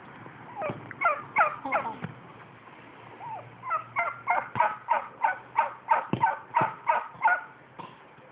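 Domestic turkey gobbling: a cluster of falling notes about a second in, then a run of about a dozen quick calls, roughly three a second, through the middle and latter part.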